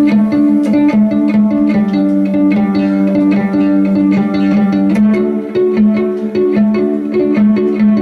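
Violin played pizzicato, held guitar-style and plucked in a quick repeating riff over a steady low note.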